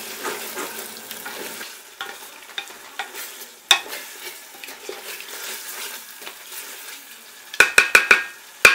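Wooden spatula stirring a thick masala with mint and coriander leaves frying in oil in a metal pot, with a light sizzle and scraping. Near the end come four quick, sharp ringing knocks and then one more, as the spatula is tapped against the pot's rim.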